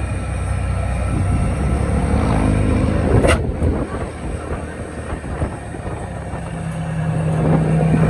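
Road vehicle engines running in traffic, with one sharp click about three seconds in. A steady engine hum grows louder near the end.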